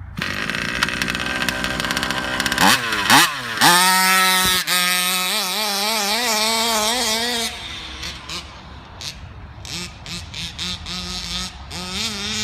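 Small two-stroke petrol engine of a 1/5-scale HPI Baja 5B RC car, a rebuilt 34cc G340, running on its first run after the rebuild. It revs up sharply twice about three seconds in, its pitch then wavers up and down, and it drops quieter and more intermittent about seven and a half seconds in.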